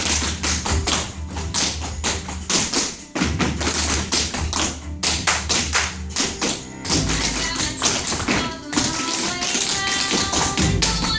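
Several dancers' tap shoes striking a wooden floor in quick, dense rhythmic patterns over recorded music.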